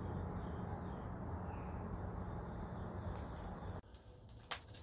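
Steady outdoor rushing background with a few faint bird chirps. At about four seconds in it drops away to a quieter wood campfire crackling with a few sharp pops.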